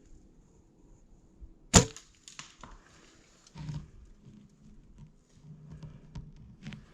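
A single sharp crack about two seconds in, followed by faint rustling and light clicks.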